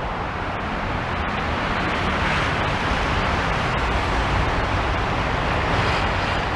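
City road traffic: a steady wash of tyre and engine noise from passing vehicles, growing a little louder about two seconds in as vehicles pass close.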